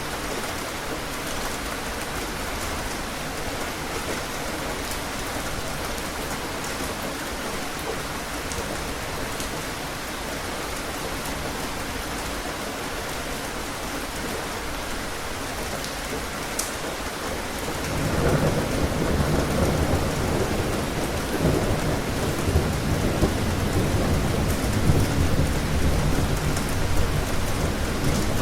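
Steady rain falling. About two-thirds of the way in, a long low rumble of thunder builds and rolls on, louder than the rain.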